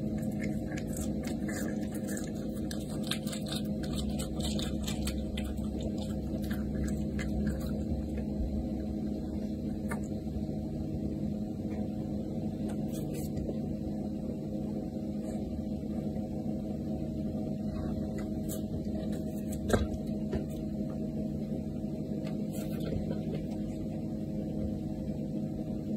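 A caracal chewing raw chicken, giving a cluster of sharp wet clicks over the first several seconds, then only the odd click. A steady low hum with several fixed tones runs underneath, with a single louder knock about twenty seconds in.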